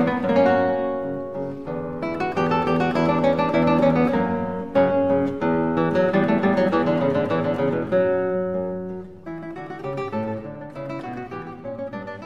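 Acoustic guitar music, plucked notes and strummed chords, growing quieter after about eight seconds.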